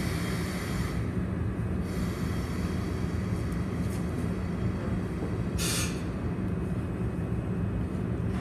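EF65 electric locomotive standing at the platform with a steady low hum. A hiss sounds at the start, and a short, sharp hiss comes a little past the middle.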